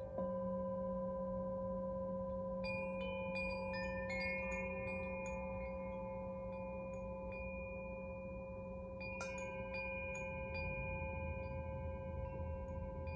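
Brass singing bowl struck once with a felt mallet just at the start, then ringing on in a steady hum. Above it a hand-held chime tinkles in two spells of quick, bright notes, the second beginning about nine seconds in.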